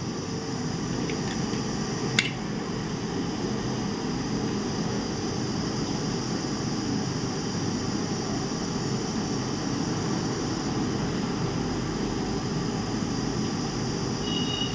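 Steady whirring hum of a fan or air conditioner, with a single sharp click about two seconds in and a short high-pitched beep just before the end.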